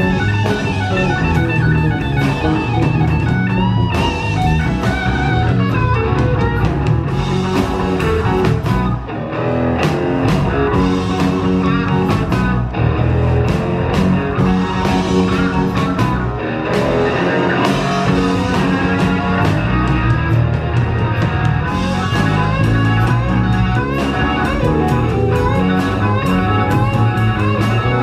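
Live rock band playing an instrumental blues-rock passage, with guitar out front over bass and drums.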